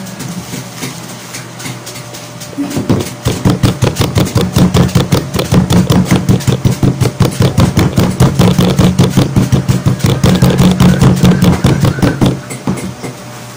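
A glass jar worked quickly back and forth over a plastic bag of Cremeo chocolate sandwich cookies on a tabletop, crushing them into fine crumbs. It makes a rapid, even run of rumbling, crunching strokes that starts about three seconds in and stops near the end.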